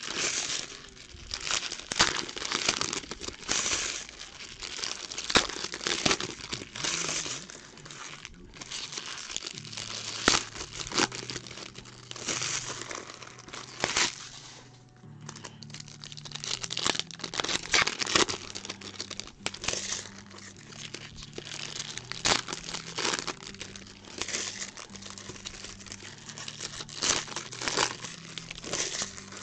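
Trading-card pack wrappers being torn open and crumpled by hand, a busy run of crinkling, crackling and tearing.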